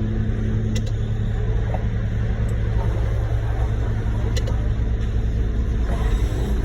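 Heavy diesel engine running steadily at a constant speed, a low, even rumble with no change in pitch.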